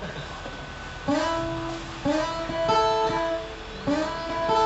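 Acoustic guitar playing: a few chords strummed about a second apart, each left ringing.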